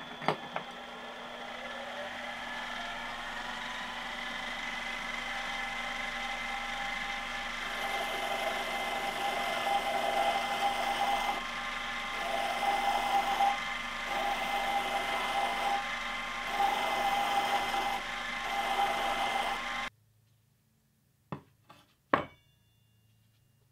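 Small benchtop metal lathe running steadily with a thin whine as it spins a steel bar. In the second half a hand file is drawn across the turning work, about one stroke every second and a half. The sound cuts off sharply, and near the end there are two light knocks as a steel blade is set down on the bench.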